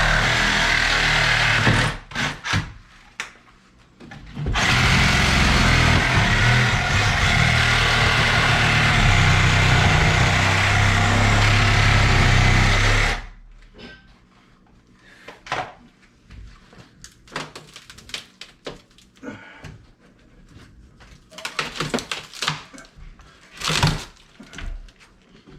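Small power saw cutting through the old wooden platform's double-layered boards, running steadily, stopping and restarting in short spurts a couple of seconds in, then running on again until it cuts off about halfway through. After that, scattered knocks and clicks of wood and tools being handled.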